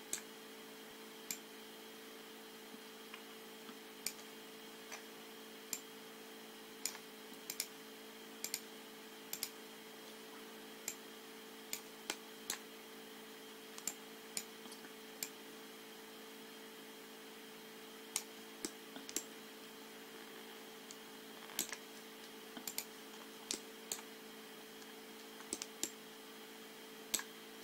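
Computer mouse clicking at irregular intervals, singly and in quick pairs, over a steady low electrical hum.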